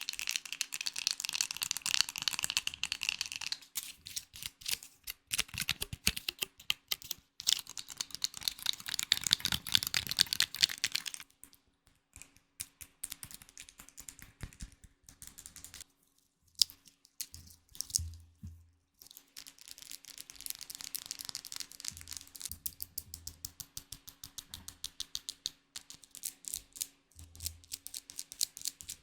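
Close-up ASMR trigger sounds: rapid, dense clicking and tapping, like keys being typed, in several runs with short pauses between them.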